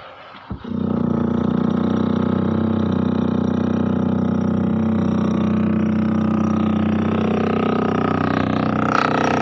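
Concrete-cutting saw running steadily at a loud, even pitch, starting abruptly just after a click well under a second in.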